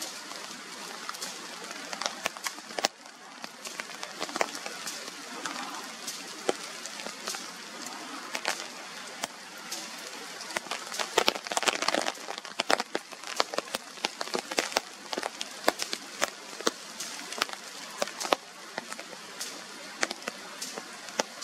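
Rain falling, a steady hiss dotted with frequent sharp taps of drops hitting nearby surfaces, the taps thickest around the middle.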